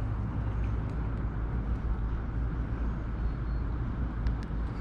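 Steady low rumble of distant city road traffic, with a few faint ticks.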